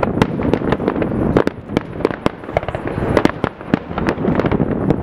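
Fireworks display: a rapid barrage of bangs from aerial shells bursting, several a second, over a continuous rumble.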